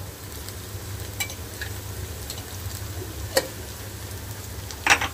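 Sliced onions and chillies frying in oil in a rice cooker pot, a faint steady sizzle with a few light clicks. A sharp knock comes near the end.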